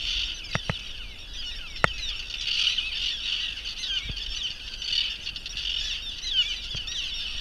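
A colony of common terns calling overhead: many short, harsh calls overlapping into a continuous din, with a few sharp clicks in the first two seconds.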